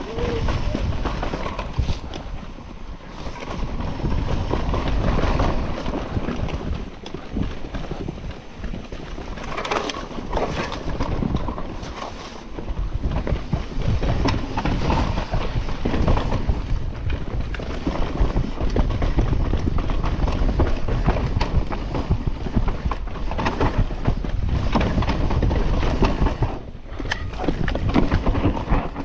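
Mountain bike riding down a steep, loose, dusty trail: wind buffeting the camera microphone over a low rumble of tyres on dirt, with scattered clicks and rattles from the bike over rough ground. It eases off briefly a few times.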